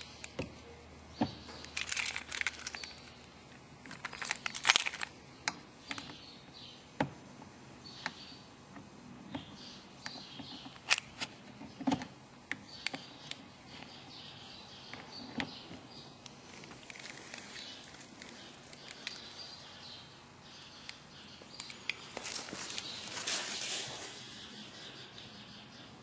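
Handling noise close to the microphone: scattered sharp clicks and short rustling bursts as a set of car keys on a paper tag is handled.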